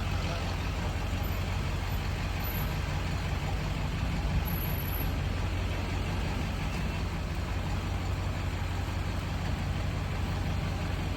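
Large engine running steadily at a constant speed: a low, even hum with a noisy haze above it.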